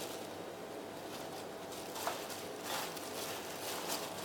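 Plastic-gloved hand rustling in a ceramic bowl of breadcrumbs while coating squid pieces: soft crinkling and scraping, with a few light clicks.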